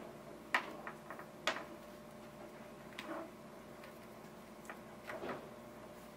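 Hard plastic MC4 assembly tools clicking and knocking against an MC4 solar connector as they are worked around it to tighten its screw cap: two sharp clicks about a second apart near the start, then scattered fainter taps.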